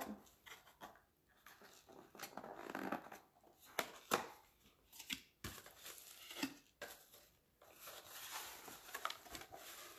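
Cardboard gift box being unpacked by hand: a box slid out of its sleeve and opened, with rustling, scraping and scattered light clicks of cardboard.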